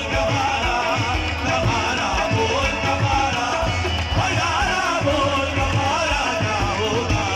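Music with a singer's voice over a steady drum beat.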